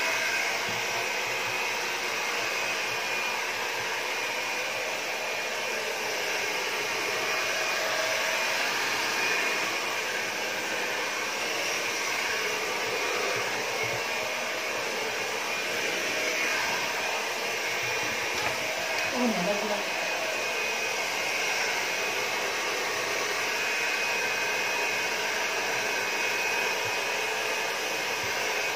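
Handheld hair dryer blowing steadily as it dries a wet puppy's coat. About two-thirds of the way in there is one short voice-like sound that bends in pitch.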